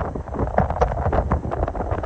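Hurricane-force wind gusting over the microphone, with wind-driven rain striking in many irregular spatters.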